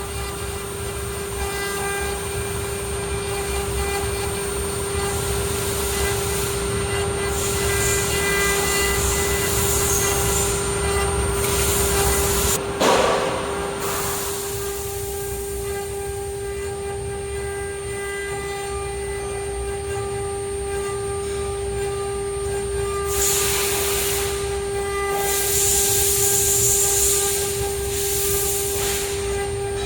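ART1325 CNC router's spindle running with a steady high whine. The sound of it cutting swells and fades in two longer rushes, one about halfway through and one near the end.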